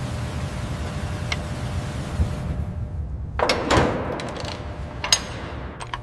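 Metal tools and parts clunking and clicking during workshop reassembly, over a steady low hum. There is a cluster of knocks a little past halfway and a sharp click about five seconds in.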